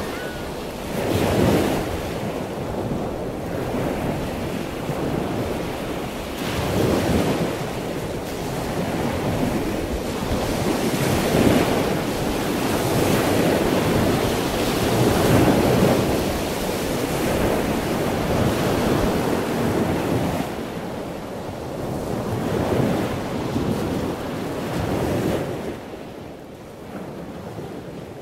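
Ocean surf breaking below a cliff, with wind buffeting the microphone; the noise swells and eases every few seconds and fades out near the end.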